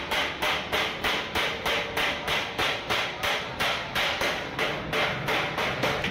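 Small hammer striking the rim seam of a cylindrical sheet-steel trunk body in a steady run of sharp metallic blows, about three a second.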